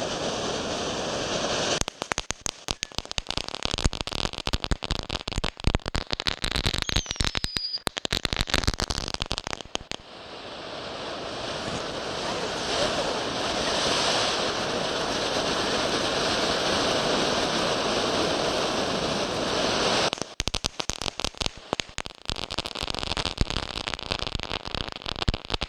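Fireworks going off overhead: a steady hiss, then dense rapid crackling for several seconds with a brief falling whistle. A long hiss swells and holds, and the crackling returns near the end.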